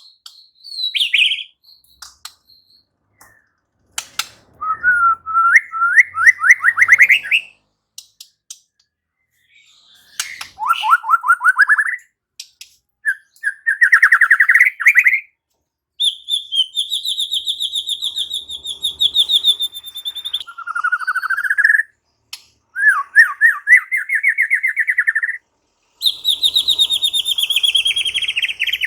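White-rumped shama (murai batu) singing loud, varied phrases of rapid repeated notes and rising trills. Each phrase lasts one to four seconds, with brief pauses between.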